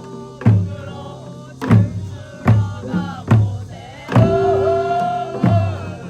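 Korean pungmul percussion band playing: deep drum strokes fall about every 0.8 s, with a sustained melodic line, held longest just past the middle, over the beat.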